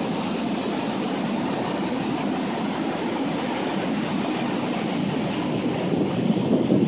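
A river weir in flood, heavy floodwater pouring over it in a steady, even rush of water.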